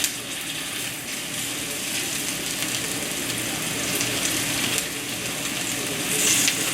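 Rice patties frying in hot vegetable oil in a frying pan, a steady sizzle, with a brief louder burst of sizzling about six seconds in.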